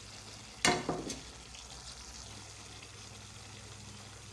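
Fried chicken pieces sizzling and simmering in tomato gravy in a pan, with a sharp clatter of a utensil against the pan just over half a second in, followed by two lighter knocks.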